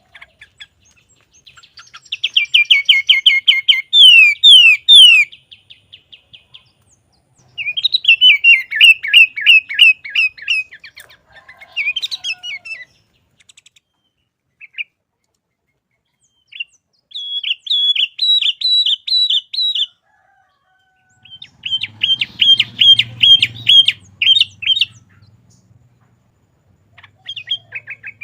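Sooty-headed bulbul (kutilang) singing loudly in four bursts of fast repeated high notes and trills, with short pauses between the phrases.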